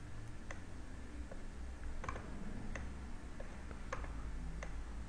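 Faint computer mouse clicks, about seven sharp ticks spaced roughly two-thirds of a second apart, over a low steady hum.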